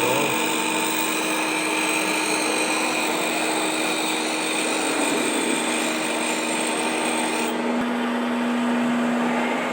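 Tool grinder machine running steadily: a continuous motor hum with a whining tone over a grinding hiss. About seven and a half seconds in, the hiss drops away and the hum settles a little lower.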